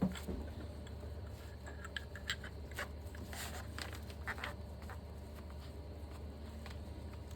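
Brief clicks and scrapes of hands and metal parts as a brake caliper piston is worked into its bore, a cluster of them a couple of seconds in, over a steady low hum; a thump at the very start.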